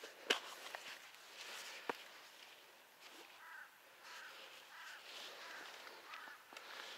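Faint crow caws: a quick string of short calls in the middle, then one or two more. Two sharp clicks come in the first two seconds.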